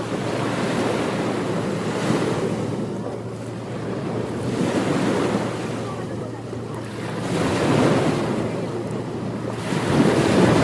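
Ocean waves breaking on a beach: surf rushing in, swelling and easing about every two to three seconds.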